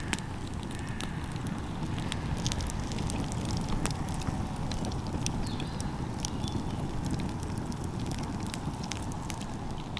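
Campfire crackling: irregular sharp pops and snaps of burning wood over a steady low rumble.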